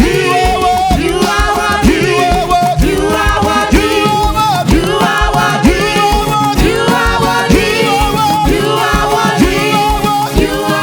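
Live church band playing an upbeat praise groove, with a steady drum beat, bass and voices singing over it.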